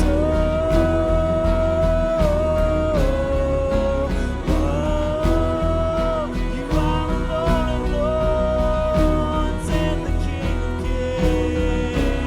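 A worship band is playing, with long held sung notes over steady bass and a regular drum beat.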